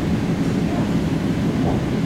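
EP2D electric train running between stations, heard from inside the passenger car: a steady, even running noise of wheels on rails and the train's motors, mostly low in pitch.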